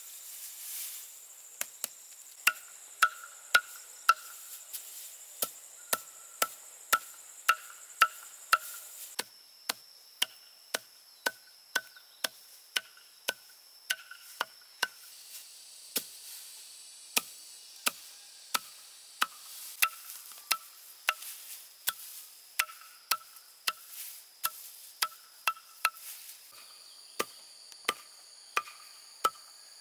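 Dry straw being chopped with a blade: short, sharp chops at a steady pace of about two a second, each with a brief ring.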